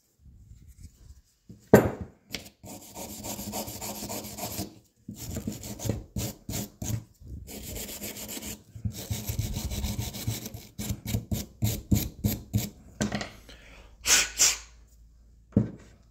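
A hand tool scraping and scrubbing old gasket residue off the metal gasket surface of a motorcycle front brake master cylinder's reservoir, in long back-and-forth spells with a quicker run of short strokes later on. A sharp knock comes about two seconds in.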